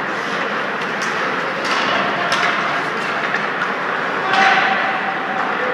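Ice hockey rink ambience in an echoing arena: a steady din of play, with several sharp knocks and a few distant voices, the loudest knock about four seconds in.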